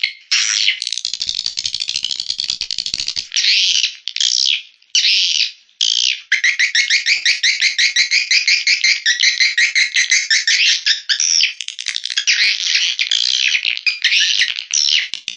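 Recorded swiftlet calls: chirps and rapid buzzy, rattling trills, with a long fast trill from about six seconds in. This is a swiftlet call lure, played to draw a colony into a swiftlet house.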